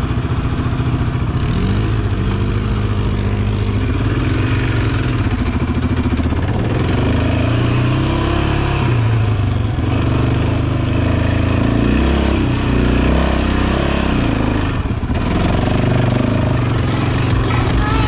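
Yamaha Raptor 700 quad's single-cylinder four-stroke engine running under the rider, revving up and easing off over and over as the quad is ridden.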